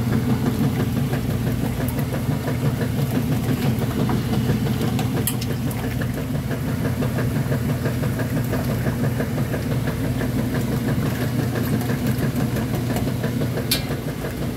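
Top-load washing machine agitating a full tub of water: a steady motor hum with the water churning. Two brief sharp clicks come about five seconds in and near the end.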